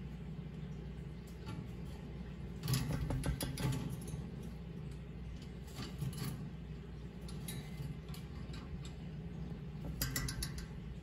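A cockatiel stamping and tapping on its perch in its cage: quick runs of light taps, the longest about three seconds in, another near the end, with a few single taps between.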